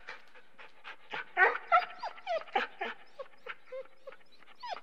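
A dog whining and yipping in a quick series of short, high calls, many of them sliding down in pitch, the loudest about a second and a half in.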